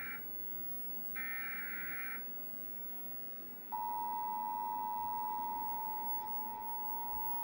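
Emergency Alert System tones for a Required Monthly Test: the end of one burst of the warbling digital SAME header data, a second full burst of about a second, then about 3.7 s in the steady, louder two-tone attention signal begins and holds. The tones announce that an emergency alert message follows.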